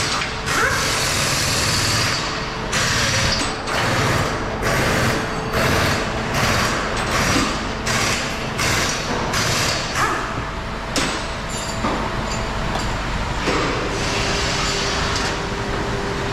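Air tool hissing and running in short repeated bursts, roughly one to two a second, while the stabilizer bar's fastening bolts are undone under the car.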